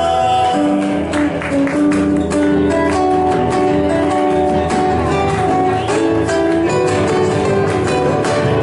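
Instrumental break of an Argentine folk song: strummed acoustic guitars keeping a steady rhythm under a melody line of held notes.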